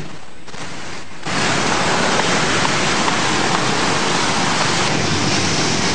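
Road traffic of cars and motorcycles going by: a steady, rushing noise that jumps suddenly louder about a second in.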